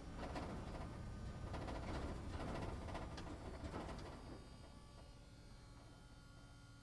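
A truck driving in a parking structure, its engine and tyre noise fading away after about four seconds and leaving a faint steady hum.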